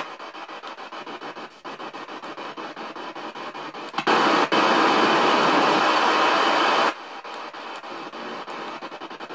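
Spirit box (ghost box) sweeping through radio frequencies: choppy static broken into rapid stepping clicks, with a louder stretch of steady hiss from about four seconds in to about seven seconds.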